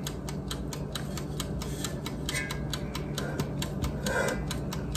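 Steady rapid mechanical ticking, about four to five even ticks a second, over a low steady hum. Faint soft handling sounds come about two and four seconds in.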